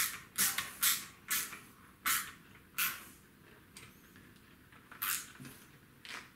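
Wood screw creaking in its pilot hole as a Phillips screwdriver turns it down through a metal rail into a wooden rifle stock. There is one short creak per turn, about six in the first three seconds and one more about five seconds in, as the screw is snugged down tight.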